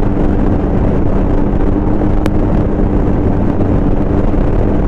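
Motorcycle engine droning steadily at cruising speed, with wind rushing over the microphone.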